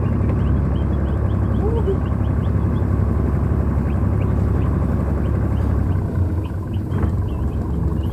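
Boat engine running with a steady low drone, easing slightly about six seconds in, under a rapid series of short high chirps.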